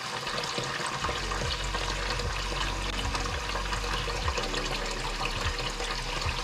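Kitchen tap running a steady stream of water into a plastic basin in the sink, splashing as the basin fills.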